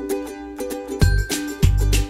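Light background music with a plucked-string melody; a bass line and a steady beat come in about a second in.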